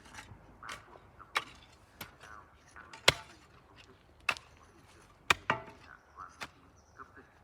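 A hand tool striking hard, about once a second, in a series of sharp chopping blows; the strikes a little after 3 seconds and a little after 5 seconds are the loudest.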